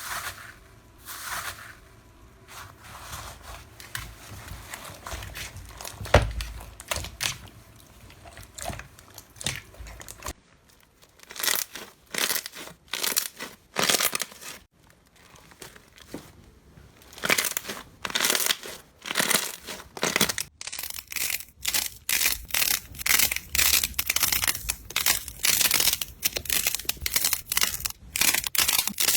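Slime being squeezed, stretched and poked by hand, making a quick run of crackles, pops and crunches. The texture changes about ten and twenty seconds in as one clip gives way to the next, with denser, sharper crackling in the last part.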